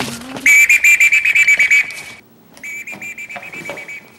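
A whistle blown in two long trilling blasts, the first loud and the second softer.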